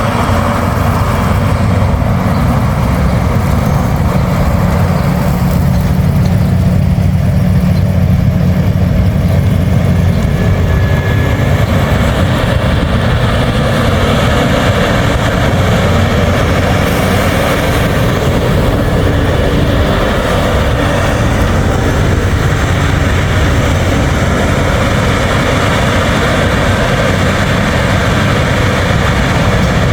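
New Holland CR10.90 combine harvester running steadily under load while threshing barley: a dense, continuous engine and machinery rumble.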